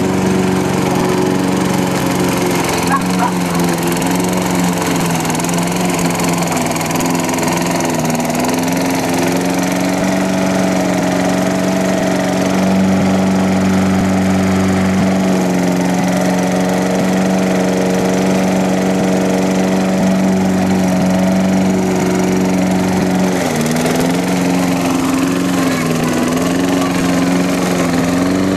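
Gasoline walk-behind lawn mower running steadily while cutting grass. The engine note dips briefly twice, about eight seconds in and again near the end, then recovers.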